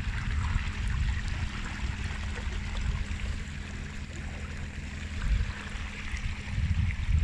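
Water rushing and splashing along the hull of an inflatable boat moving under an electric trolling motor, with a steady low hum and an uneven low rumble underneath.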